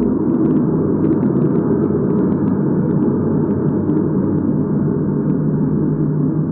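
Loud, steady low drone made of several held tones, the kind of unexplained 'strange sound' posted as heard from the sky.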